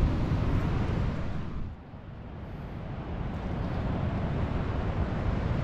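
Wind buffeting the microphone outdoors by the sea: a steady low, blustery noise that drops away sharply just under two seconds in, then builds back up.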